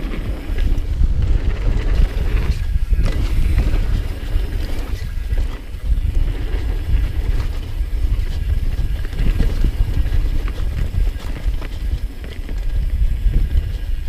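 Wind buffeting the action camera's microphone as a downhill mountain bike runs fast over a dirt trail, with a constant low rumble of tyres and frame over the ground and a few sharper knocks from bumps.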